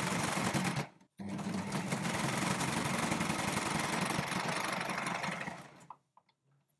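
Brother four-thread overlocker (serger) stitching a seam in folded ribbing. It runs, stops briefly about a second in, then runs steadily again for about four seconds before slowing to a stop near the end.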